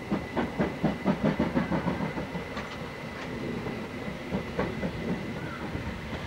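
Steam train on the move: quick rhythmic beats at about four to five a second, loudest for the first two seconds or so, then fading into a steady rumble with a few single clanks.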